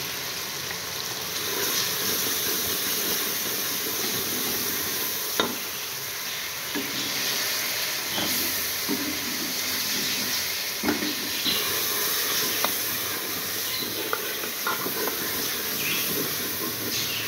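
Tomato, onion and ground-spice masala sizzling in hot ghee in a metal pot while being stirred with a wooden spoon, which knocks and scrapes against the pot now and then, loudest about five seconds in.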